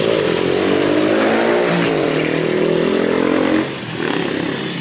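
Motor scooter engine passing close by on the street, its pitch rising and falling, with town traffic behind it. The engine sound drops away suddenly after about three and a half seconds.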